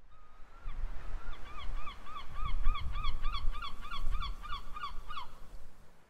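Herring gull's long call: one drawn-out note, then a rapid series of laughing 'kyow' calls at about four a second, over a low rumble. The calls stop a little after five seconds in.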